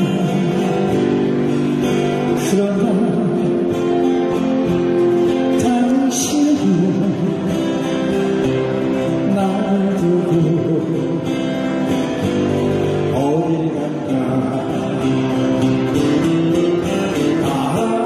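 A male singer sings a slow Korean ballad to acoustic guitar accompaniment.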